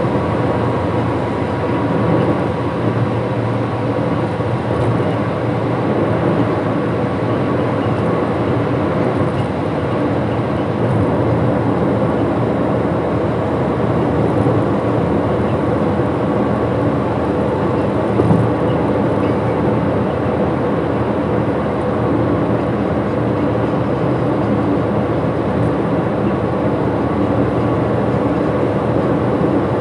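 Steady road and wind noise from a vehicle driving at highway speed, an even rumble.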